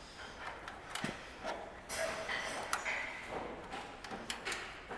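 Scattered light clicks and taps with some rustling, from small metal parts, wires and tools being handled.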